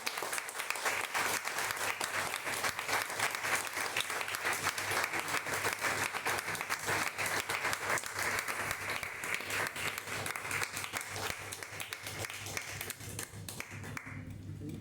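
Audience applauding, sustained clapping from a small crowd that stops about fourteen seconds in.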